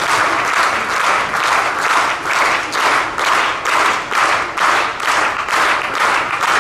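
A crowd of parents clapping along together in a steady rhythm.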